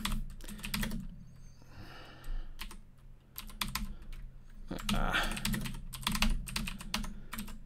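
Typing on a computer keyboard: irregular key clicks, some in quick runs, over a low steady hum.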